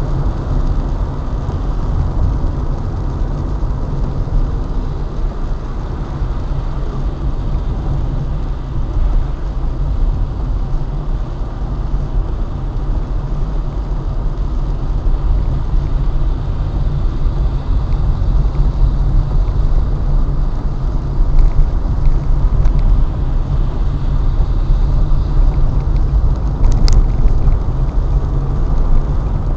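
Car driving on a wet road, heard from inside the cabin: a steady low rumble of engine and road noise, with one short sharp click near the end.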